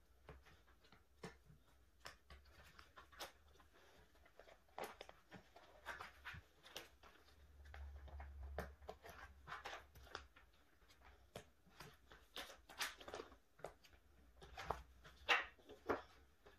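Clear plastic photocard sleeves crinkling and rustling as they are handled in a three-ring binder, with many small irregular crinkles and taps.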